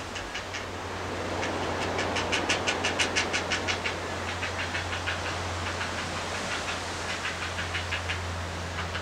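Great blue heron fledglings giving a fast clicking chatter, about seven clicks a second, loudest two to three seconds in and fading by the end, over a steady low hum and rushing background noise.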